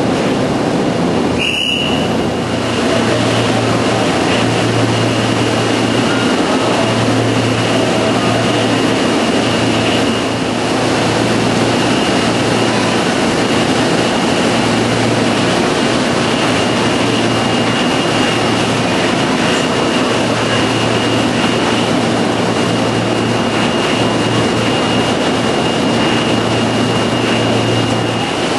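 Series 0 Shinkansen train pulling out and running past the platform: a steady, loud mix of motor hum and rolling noise, with a thin high tone held throughout. A short, sharp high sound comes about two seconds in.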